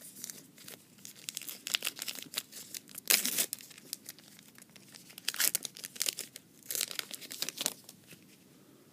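Foil trading-card pack wrapper being torn open and crinkled by hand, in irregular crackling bursts, the loudest about three seconds in.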